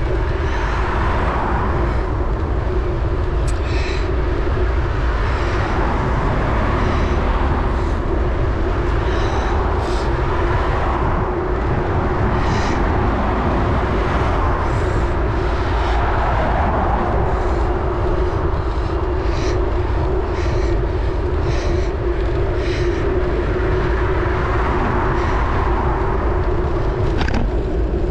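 Wind rumbling on a bicycle-mounted camera's microphone while riding along a tarmac road, with tyre and road noise and a steady hum underneath. Short ticks and rattles come scattered through it.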